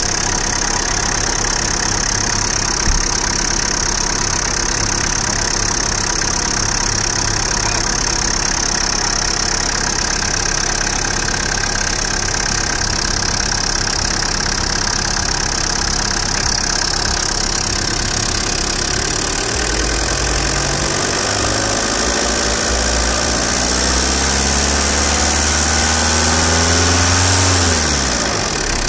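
Tata Indigo CS's four-cylinder diesel engine, with a mechanical injection pump, idling steadily. About two-thirds of the way in its speed rises slowly, then falls back just before the end, with one short click about three seconds in.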